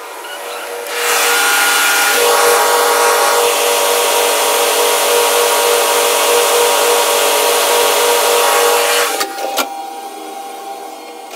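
Ship's lift running between decks: a loud, steady mechanical drone with a held hum and a hiss that starts about a second in and cuts off about nine seconds in, followed by a few sharp clicks.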